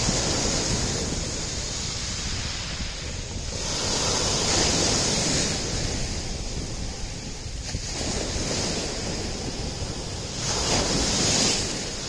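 Small sea waves breaking and washing up a pebble beach, the surf swelling louder twice, about four seconds in and again near the end.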